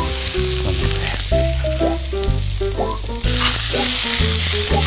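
Shredded onion and cabbage sizzling in hot oil in a frying pan as they are tossed with tongs; the sizzle gets louder about three seconds in. Background music with a steady bass line plays underneath.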